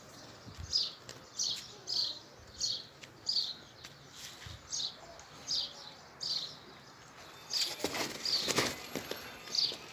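A small bird chirping over and over, short high chirps about every two-thirds of a second. Near the end there is a louder rustling, scuffing noise lasting about a second and a half.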